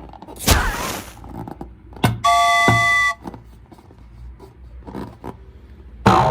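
A horn-like honk held for about a second, starting about two seconds in, after a short noisy whoosh about half a second in. A sudden loud hit comes near the end.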